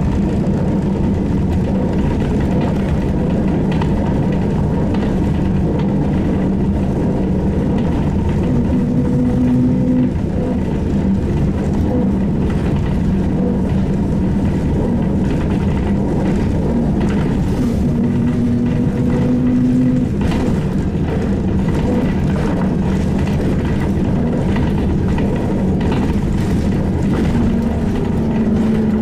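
Ride sound of a SVARZ-MAZ-6235.00 trolleybus: a steady electric hum over a low rumble, with a slightly higher tone coming in briefly three times and scattered clicks and rattles.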